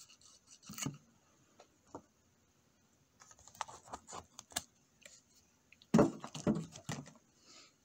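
Irregular light clicks and taps of small parts being handled, sparse at first, busier about three seconds in, and loudest in a cluster about six seconds in.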